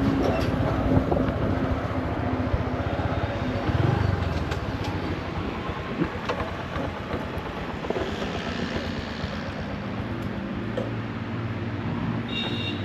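A vehicle engine running steadily, with a broad rushing noise over it and a few faint clicks.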